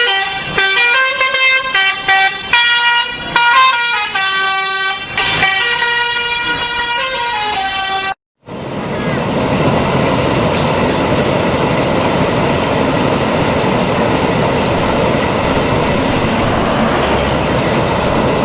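Bus 'telolet' musical air horn playing a quick tune of stepped multi-tone notes. After an abrupt cut about eight seconds in, it gives way to a steady rumble of road and engine noise.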